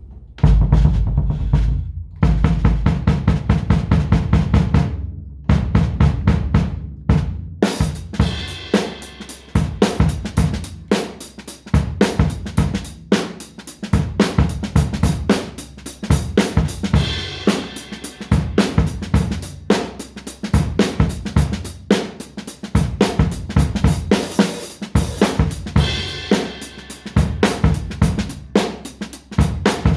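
Drum kit being played: a busy, unbroken run of close-spaced strikes.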